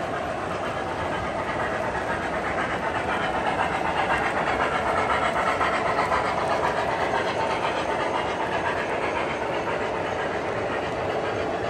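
Model freight train of metal-wheeled refrigerator cars rolling past close by on three-rail track: a steady rumble of wheels on the rails. It swells as the cars pass nearest, a few seconds in, and eases off near the end.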